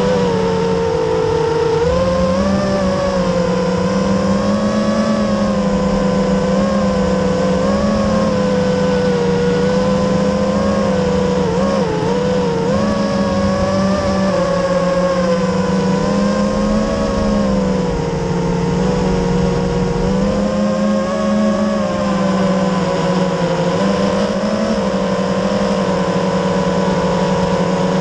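FPV racing quadcopter's electric motors and propellers, heard from the onboard camera as a steady buzzing whine whose pitch rises and falls as the throttle changes.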